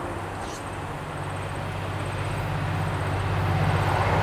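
A V/Line N class diesel-electric locomotive's EMD two-stroke V12 engine, approaching unseen: a steady low drone that grows louder.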